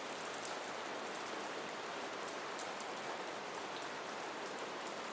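Soft, steady rain falling, an even hiss with scattered faint drop ticks.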